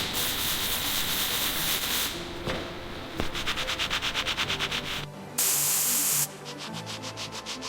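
A hissing spray starts suddenly and runs for about two seconds. A fast rhythmic rasping follows at about ten strokes a second, then a short loud burst of spray, then the rasping again. Background music plays underneath throughout.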